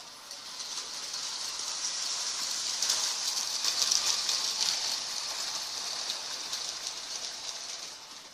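Lionel toy train running along its track: a steady high hiss of wheels and motor that swells to its loudest about halfway through, then fades near the end as it moves away.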